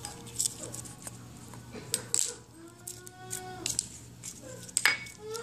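A plastic spoon tapping and clinking against a small glass of water as crepe paper is stirred in, in scattered light clicks. A young child cries in the background, one drawn-out wail lasting under a second about two and a half seconds in.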